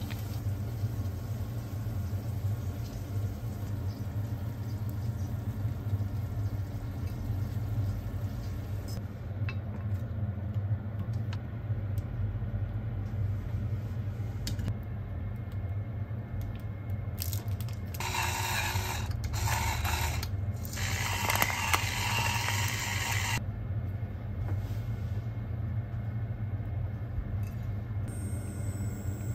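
A pepper mill grinding in several short bursts past the middle, over a steady low hum.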